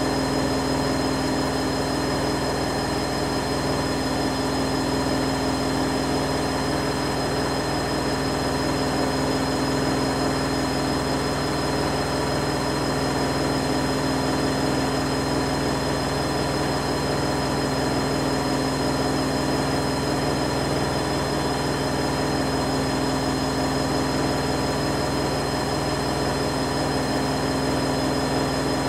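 Electrolux EWF9042R7WB front-loading washing machine spinning steadily with a light load: an even motor whine with a low drum hum, holding one speed throughout.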